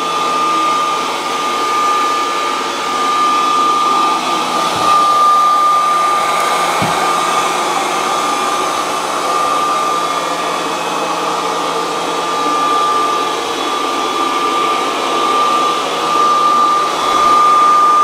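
Fmart E-R550W(S) robot vacuum running in its spot (circular) cleaning mode: a steady rushing hiss from its suction motor with a constant high-pitched whine over it.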